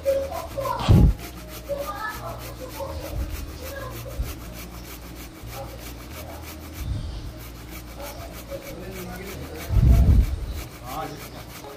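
Rubbing and scraping handling noise from a steel box grater and plate being moved, with a short dull thump about a second in and a heavier one near the end.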